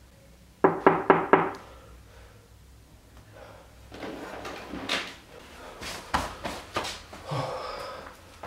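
Four quick knocks on a door in about a second. About three seconds later comes a longer stretch of rustling and clatter with several sharp clicks.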